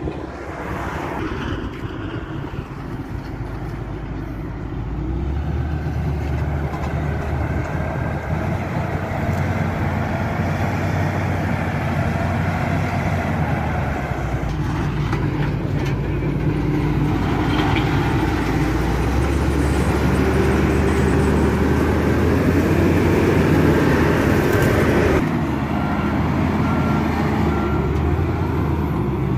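Diesel engine of a Kawasaki wheel loader running, revving up a few seconds in and working harder, then easing off about four seconds before the end. A few faint high beeps sound near the end.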